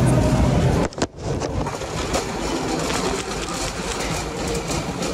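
Steady rumbling noise of a vehicle in motion, briefly cut off about a second in.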